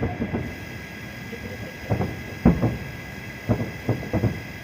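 Fireworks exploding in an irregular series of bangs, some in quick clusters, the strongest about halfway through. A steady high whine runs underneath.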